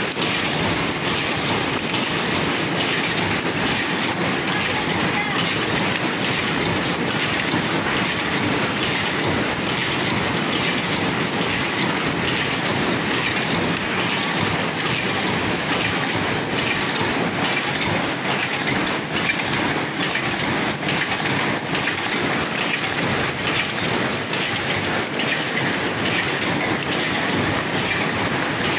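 Automatic paper cup making machine running: a steady mechanical clatter with regular clicking from its moving parts.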